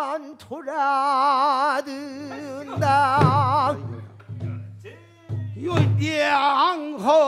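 Male pansori singing: long held notes with a wide, wavering vibrato, broken by short pauses between phrases.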